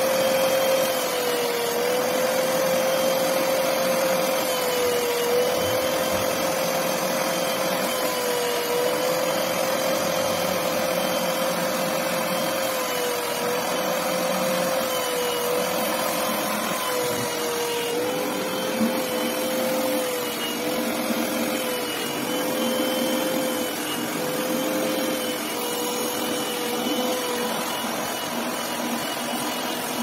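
Spray-extraction upholstery cleaner's suction motor running steadily as its hand nozzle is drawn across a wet fabric chair seat, sucking up water and dirt. Its high whine dips briefly in pitch every few seconds over a steady rushing hiss.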